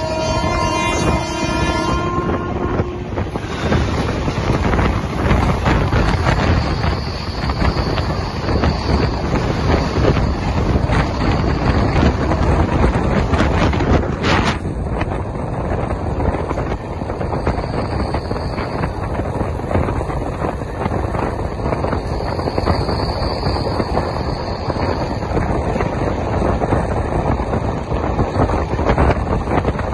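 Wind rushing over the microphone at the open door of a moving train of LHB coaches, with the steady rumble of wheels on rail. A pitched horn-like tone with several overtones sounds for the first three seconds, most likely a train horn.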